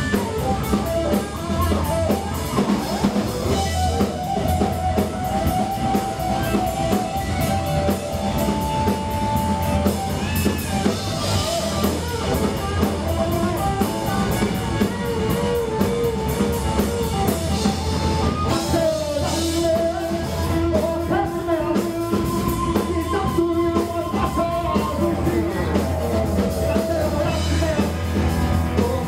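Rock band playing live: electric guitar and drum kit.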